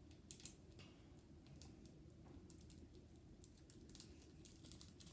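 Faint, scattered light clicks and taps of a small glitter container being handled over a slime bowl, against a quiet room hum.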